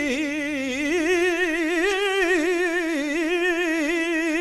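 A male flamenco singer holding one long wordless melismatic note in a tientos, the pitch wavering in a wide, fast vibrato around a single tone. A low backing note dies away about a second in.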